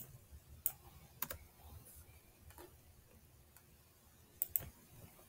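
About half a dozen faint, scattered clicks from a computer keyboard and mouse as values are typed in, with a quick pair of clicks near the end.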